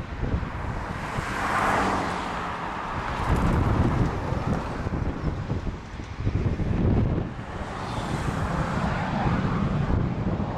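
Jet engines of Eurofighter Typhoons running while the aircraft hold on the runway before takeoff, a steady roar that swells twice, heard under heavy wind buffeting on the microphone.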